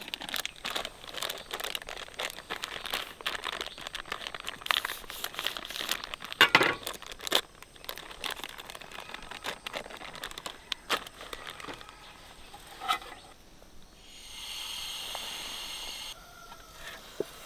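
Crinkling and rustling with many sharp clicks and crackles, loudest a little over six seconds in, then a steady hiss for about two seconds near the end.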